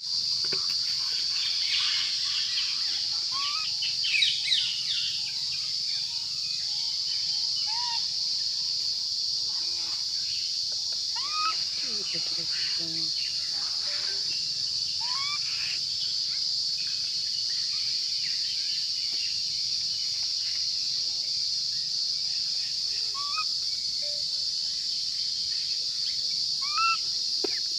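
Outdoor ambience: a steady high-pitched insect drone, with short rising chirpy calls from time to time and a brief cluster of them about four seconds in.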